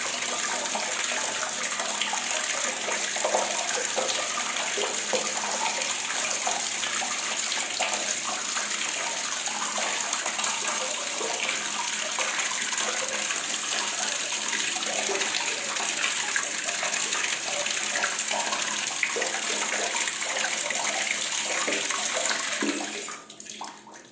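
Water faucet running in a steady, full stream, splashing into a basin; the flow dies away unevenly about a second before the end, as the tap is shut off.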